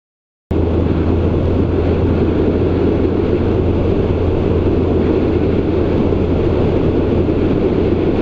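Bass boat under way: a loud, steady rush of outboard motor, wind and water. It starts abruptly about half a second in.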